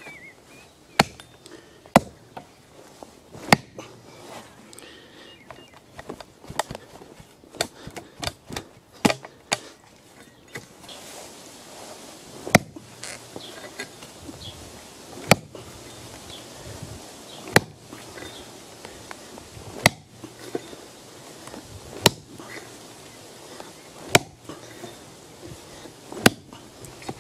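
Blunt axe chopping into a plum tree stump: a few sharp blows in the first seconds, a spell of lighter, quicker knocks, then one heavy chop about every two seconds.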